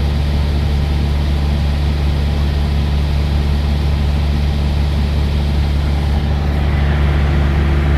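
Semi-truck's diesel engine idling with a steady, even low hum, heard from inside the cab.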